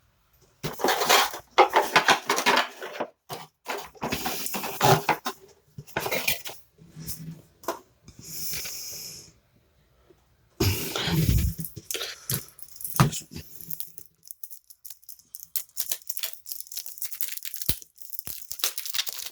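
Trading cards and their packaging being handled, rustling in irregular bursts, with a steadier hiss lasting about a second and a half around the middle.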